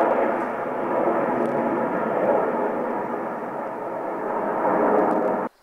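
Jet noise from the Red Arrows' formation of BAE Hawk trainer jets passing overhead in a looping display: a steady, rushing roar that cuts off suddenly near the end.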